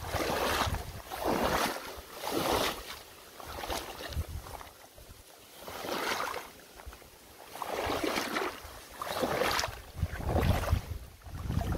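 Water swishing and splashing in a regular rhythm, a stroke roughly every second, each with a dull low thump, and a slightly longer gap midway.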